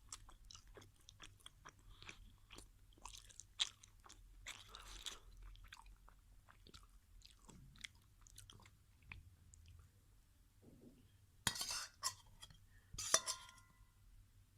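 Chewing of crunchy food at close range: a run of irregular small crunches and mouth clicks, with two louder bursts of crunching near the end.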